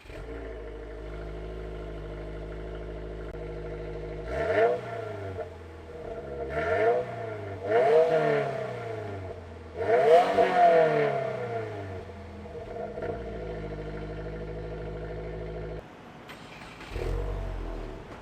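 2022+ Subaru WRX's turbocharged 2.4-litre flat-four on the stock exhaust, idling, then revved four times in quick blips that each rise and fall back to idle. Near the end, after a cut, the same car fitted with a PERRIN midpipe revs once briefly.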